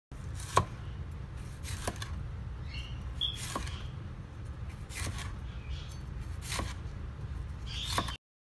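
Chef's knife slicing through a bell pepper and striking a plastic cutting board, six sharp knocks about a second and a half apart, over a steady low hum.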